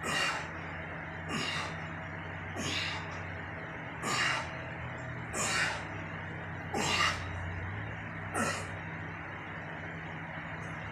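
A man breathing out hard through his mouth with each rep of an overhead dumbbell lift: seven short, forceful hissing exhales about a second and a half apart, stopping after about eight and a half seconds.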